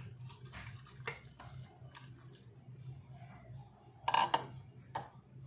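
Pork belly slices being put into a bowl: soft handling sounds and a few light knocks, the loudest a clink about four seconds in, over a steady low hum.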